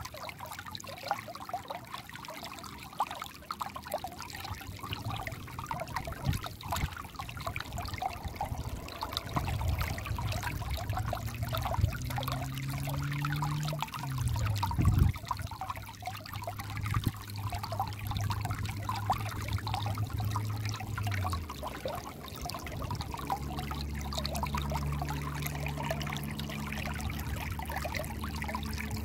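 Shallow, clear stream trickling and babbling over pebbles and rocks. A low hum joins about a third of the way in, drops in pitch around the middle with a brief low thump, and returns steadier near the end.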